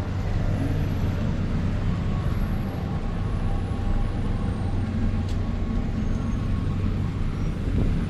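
Street traffic at a standstill in a jam: car and bus engines idling with a steady low hum.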